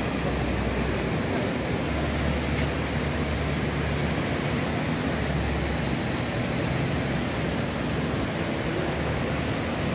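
Steady rushing background noise, with a low rumble that comes and goes.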